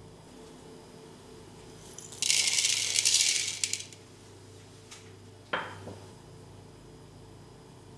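Whole black peppercorns and other dry spices poured into a clay pot, rattling for about a second and a half. A couple of seconds later comes a single sharp clink.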